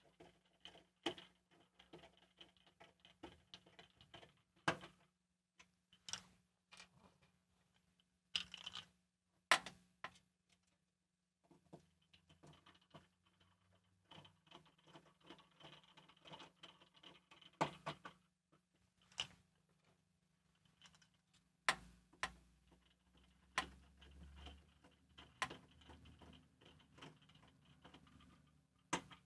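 Faint irregular clicks and taps of small screws and a screwdriver being worked into the metal chassis of a Shure SLX-D wireless receiver, with a few louder knocks of parts being handled.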